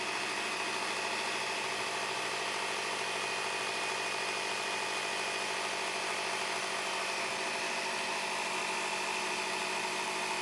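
Stanley PowerStation's built-in 120 PSI digital air compressor switching on and running steadily while it inflates a Segway tire.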